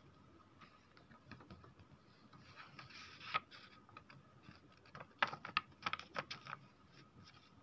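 Light clicks and rustles of a sheet of paper being handled and tilted, in two short flurries: one about two and a half seconds in, and a louder one about five seconds in.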